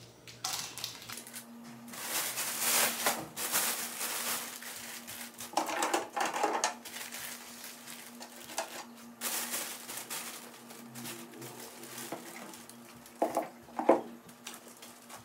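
Food packs rustling and knocking as they are handled and set into a mini bar fridge, in bursts with many small clicks. A steady low hum starts about a second in.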